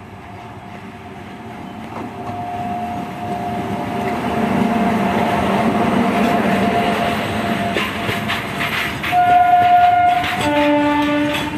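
A WAG-9HC electric locomotive hauling a BCNA covered-wagon freight train passes close by, its running noise and wheel clatter growing louder over the first half. Near the end a train horn sounds twice: a higher note of about a second, then a lower, chord-like note.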